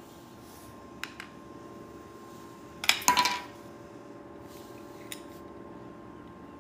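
Small hard plastic clicks and clatter of miniature toy pieces being set down and handled on a mini cake stand: two light taps about a second in, a quick cluster of clicks near the middle, the loudest, and one more tap later.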